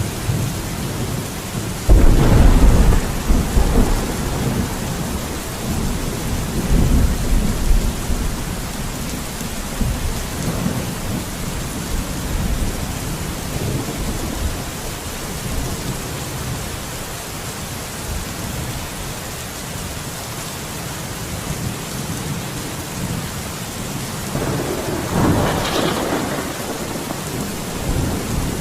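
Steady rain with thunder. A loud rumble of thunder starts about two seconds in and rolls on for several seconds, and a second, sharper rumble comes near the end.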